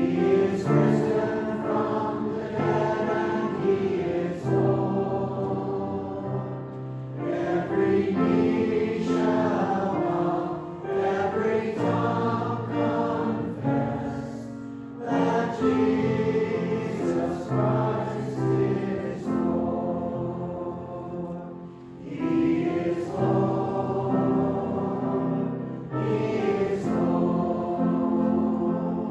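A choir or congregation singing a hymn in slow, sustained phrases, with short pauses between lines.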